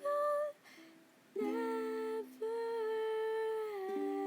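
Female voices humming held notes in harmony, two or three pitches at once: a short note, then a chord, then a long note that steps down slightly near the end.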